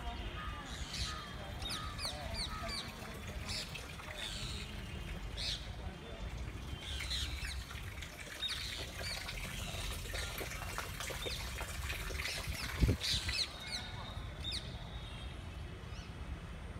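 Many birds calling in the trees: short, sharp chirps repeating several times a second, over a low rumble. One sharp knock stands out late on.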